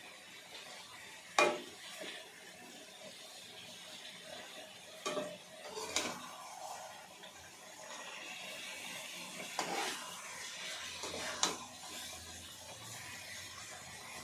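Chicken frying in oil in a metal pot on a gas stove: a faint steady sizzle broken by about five sharp metal clanks as the pot is stirred and handled, the loudest about a second and a half in.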